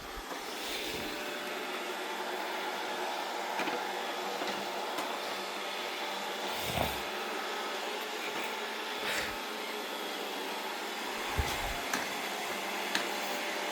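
Two robot vacuum cleaners, a Wap W90 and an iRobot Roomba 675, running with a steady whirr. A few dull knocks come through over it.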